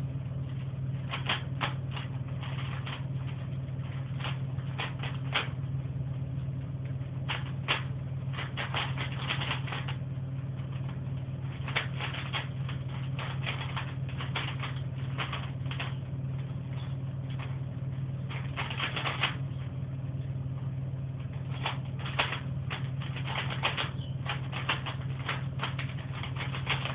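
Rubik's cube being twisted by hand: irregular runs of quick plastic clicks and rattles as the layers turn, over a steady low background hum.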